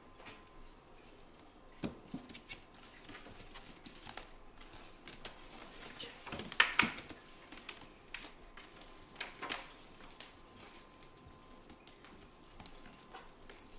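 Kittens play-fighting: scattered scuffles and light knocks, with a loud kitten call about halfway through and another a few seconds later.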